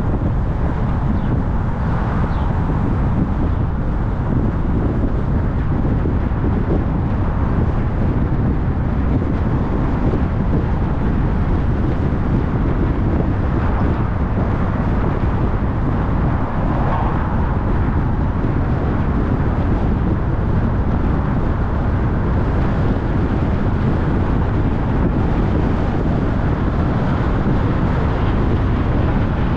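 Car driving on city streets: a steady, low rumble of tyre, road and engine noise.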